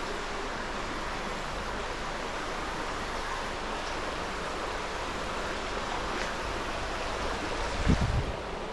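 Steady rush of wind and tyre noise on a bicycle-mounted action camera while riding, with one low thump about eight seconds in.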